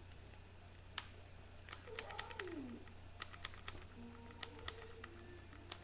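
Irregular sharp plastic clicks, several a second, from a cheap see-through airsoft MP5 being worked in the hands, its fire selector set to semi-auto.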